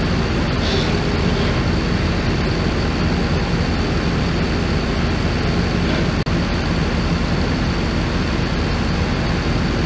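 Heavy-duty pickup truck engine running steadily as the truck backs slowly toward a loaded trailer, with a steady low hum. The sound cuts out for an instant about six seconds in.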